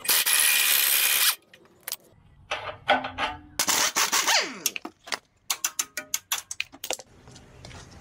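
Cordless impact wrench hammering at bolts on a Land Rover Discovery 3's front suspension and brake. There are two runs, the first for just over a second at the start and the second about halfway through, which winds down in falling pitch. A quick series of sharp metallic clicks and knocks follows.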